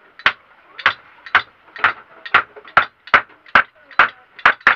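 Hammer striking a wooden bed frame under repair, about ten sharp blows at a steady pace of roughly two a second.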